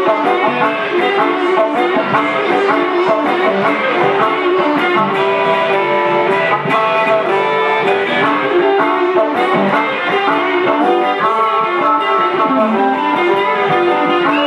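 Instrumental blues break on a Stratocaster-style electric guitar through an amp, with harmonica playing along. Held notes change in steps, and near the end a bent note dips and comes back up.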